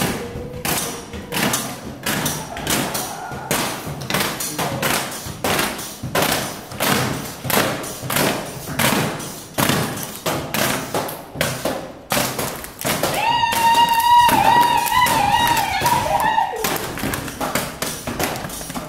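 Improvised percussion: a steady run of sharp taps and thumps, about three a second, from hands and a plastic water bottle striking concrete and metal railings. About two-thirds of the way in, a high wavering held note joins for a few seconds.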